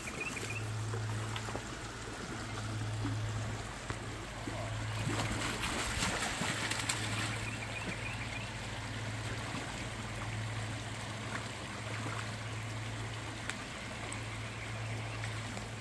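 Stream water running and trickling, louder for a couple of seconds around the middle, with a low hum that comes and goes underneath.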